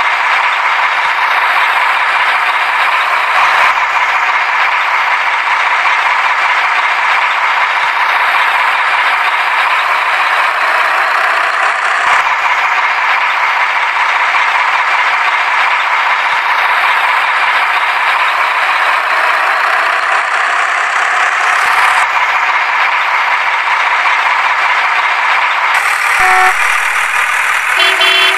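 Truck engine sound effect laid over the toy-truck footage: a steady engine drone that repeats as a loop about every nine seconds. A few short tones come in near the end.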